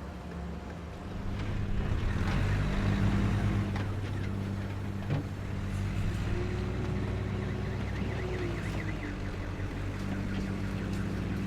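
Street traffic: vehicle engines running with a steady low hum, growing louder about a second and a half in.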